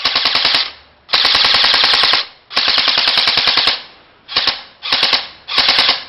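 APS ASR103 M4 CQB electric blowback airsoft rifle firing on full auto: its gearbox and blowback bolt cycling in rapid, even bursts. Six bursts: two long ones of about a second, then three short ones near the end.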